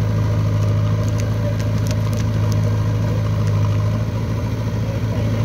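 Diesel engines of a tractor and a backhoe loader running steadily at low revs, giving a deep, even hum. A few light clicks and clatters come through in the first half.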